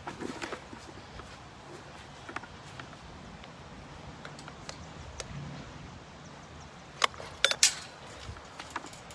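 Faint outdoor background with a few sharp clicks and rattles, clustered about seven seconds in.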